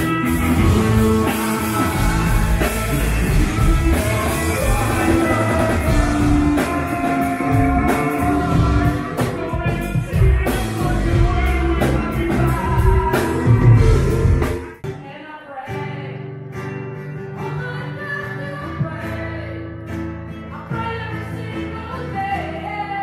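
Live rock band playing with a male lead singer, electric guitars, bass and drum kit. About two-thirds of the way in it cuts off suddenly to a quieter song, a woman singing over a strummed acoustic guitar through the stage PA.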